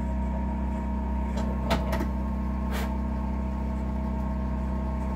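Sharp clicks and a light knock from a shotshell being worked on a Lee Load-All 2 reloading press, about one and a half to three seconds in, over a steady electrical hum.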